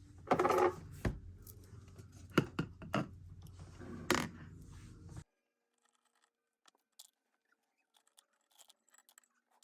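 Clicks, scrapes and short rustles of small objects being handled over a steady low hum; the sound cuts off abruptly about five seconds in, leaving near silence with a few faint ticks.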